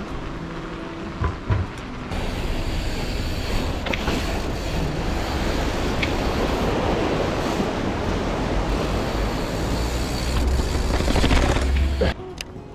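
Wind buffeting and tyre rumble from a mountain bike being ridden along paved paths, with rushing water from the river below, and two knocks about a second and a half in. The noise cuts off suddenly near the end.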